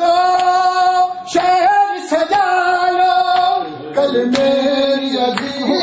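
A man singing a Punjabi noha (mourning lament) in long held, drawn-out notes, over the rhythmic strokes of mourners beating their chests in matam, about once a second.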